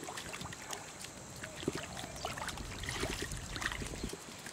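A small hooked fish splashing and thrashing at the water's surface while it is played on a hand line, a run of short, irregular splashes.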